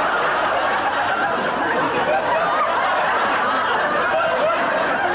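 A crowd of people laughing loudly and steadily.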